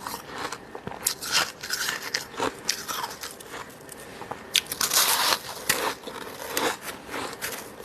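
Close-miked crunching of fluffy freezer frost being bitten and chewed, in irregular sharp bites with a denser run of crunching about five seconds in.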